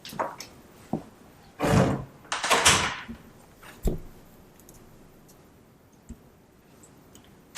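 A door being handled in a small room: a few knocks and thuds, and two longer sliding swishes about two seconds in. Then quiet room tone.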